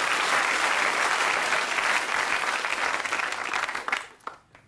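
Studio audience applauding, dying away suddenly about four seconds in.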